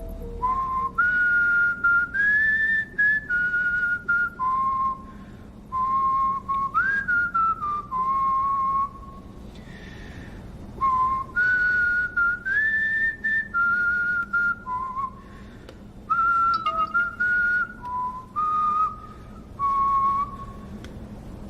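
A person whistling a slow melody, one clear note at a time, with the same phrase whistled twice and a short pause between.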